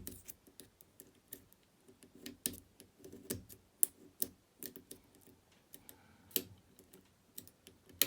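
Light, irregular metallic clicks and taps of a lock pick pushing the sliders of a Fontaine 7-slider pump lock while the lock is held under tension.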